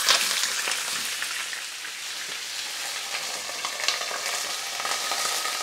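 A large T-bone steak searing in hot ghee in a pan, with steady crackling sizzle and spitting fat that is strongest just after it goes in. The heavy spitting comes from the steak having been washed and going into the fat wet.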